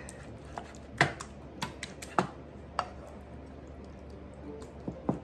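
Wooden spoon scraping and knocking against a skillet and a disposable aluminium foil pan while spooning thick meat sauce: an irregular scatter of sharp clicks, the loudest about a second in and just after two seconds.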